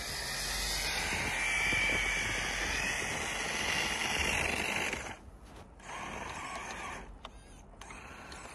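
Traxxas TRX-4 RC crawler's brushless motor and drivetrain whining under throttle while it ploughs through deep, dry snow. About five seconds in the sound drops away, comes back for about a second, then continues quieter.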